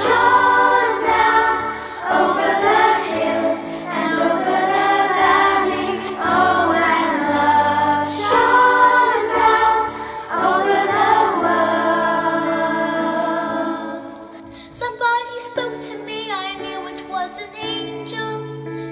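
Children's choir of girls singing a gentle Christmas song over a backing accompaniment. About fourteen seconds in, the full choir drops away to a single girl singing solo over softer accompaniment.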